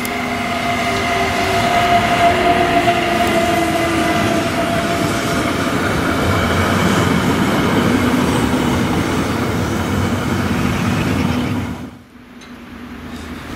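NSB El 18 electric locomotive hauling passenger coaches past at low speed: a whine of several steady tones over the rumble of wheels on rail. It cuts off suddenly about twelve seconds in.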